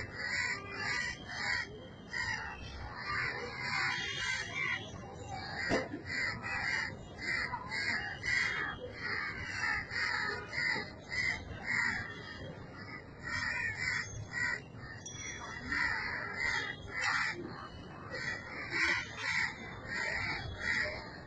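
Crows cawing over and over, short harsh caws following each other about twice a second without a break.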